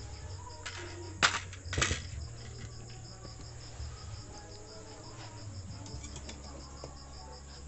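Two sharp knocks, about half a second apart about a second in, as the CRT television's circuit board is handled and pulled free for resoldering. A steady low hum and a faint, high, evenly pulsing chirp run underneath.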